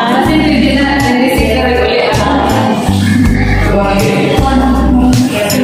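Background music with singing over a bass line that changes note about once a second.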